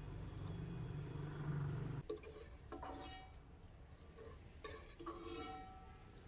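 A low steady hum that cuts off about two seconds in, followed by a few light clinks of dishes or utensils, each leaving a short ringing tone.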